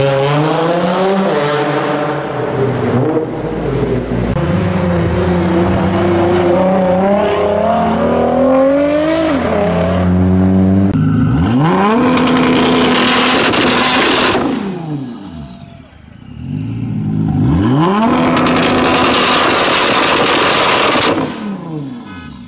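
GT-R sports car engine and exhaust revving hard: the pitch climbs and drops several times over the first half, then two separate revs each climb and fall back, loudest at their peaks.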